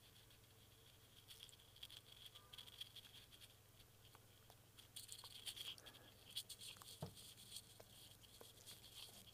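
Faint clicks and rustling of hand crimping pliers being squeezed and worked on a spade connector's insulation sleeve. A few sharper small ticks come in the second half.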